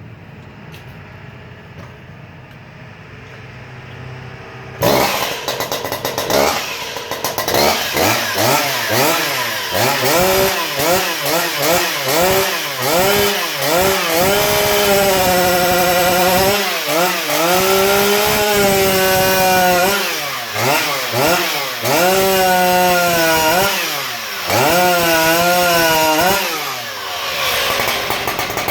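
Hot-rodded Stihl MS 880 two-stroke chainsaw with a custom exhaust idling quietly, then revved hard in quick blips about five seconds in. It is then held at full throttle through several cuts, the engine pitch sagging under load and picking back up, and it falls back toward idle near the end.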